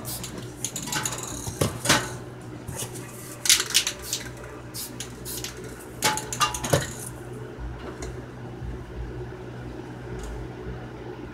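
Irregular metallic clinks and clatter in a few clusters over the first seven seconds, from a steel circular saw blade being handled on a metal wire rack.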